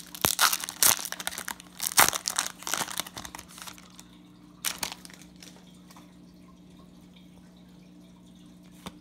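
Baseball card pack wrapper crinkling and tearing as the pack is opened, a dense crackling over the first four seconds with one more crackle about five seconds in. After that only a faint steady low hum.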